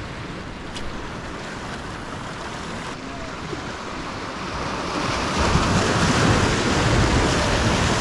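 Ocean surf washing on the beach, swelling louder about five seconds in as a wave breaks and rushes in, with wind buffeting the microphone.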